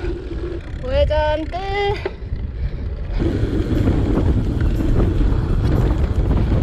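A short phrase of stepping melodic notes, then, about three seconds in, a sudden switch to a steady rush of wind on the microphone and road noise from a moving road bike.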